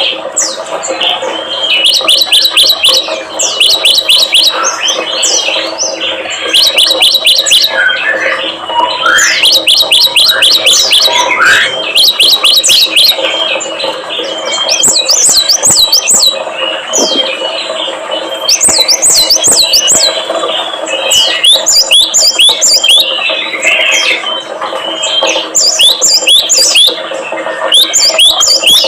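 Small songbirds calling loudly and without pause: quick runs of high, sharply falling notes in bouts of a second or two, with a few lower rising whistles, over a steady low hum.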